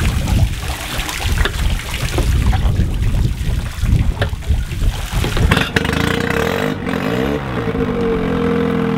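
Rushing, splashing water from the hose-fed flushing attachment. About halfway through, a Honda BF10 four-stroke outboard starts and settles into a steady idle, running on fresh hose water to warm its oil.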